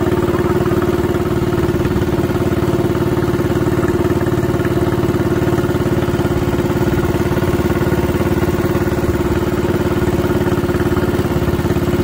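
Boat engine of a small wooden river boat running steadily under way, a loud even drone with a fast, regular pulse and no change in speed.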